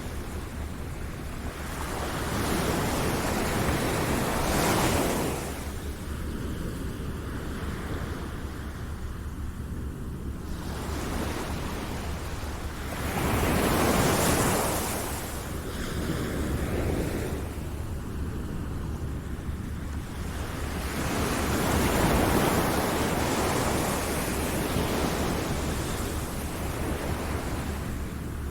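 Ocean surf washing in and receding, a steady rushing noise that swells louder three times as waves break, several seconds apart.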